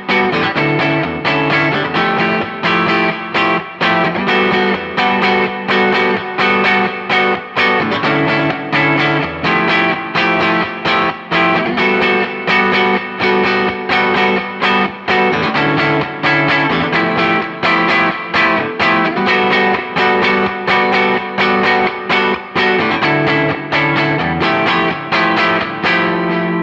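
Electric guitar, a Fender Telecaster played through an effects pedalboard, picking ambient post-rock/math-rock chord arpeggios. Notes follow in a quick, even stream over chords that change every second or two, with a driven, effected tone.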